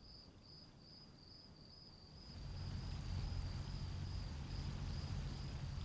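A faint high-pitched trill pulsing a few times a second, with a low hum that swells up about two seconds in.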